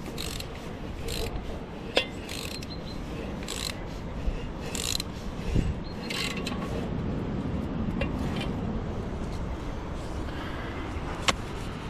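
Hand socket ratchet clicking in short repeated bursts, one with each back-swing, as it drives concrete screw anchors to fix a stainless steel drinker bowl. Near the end there is a single sharp click.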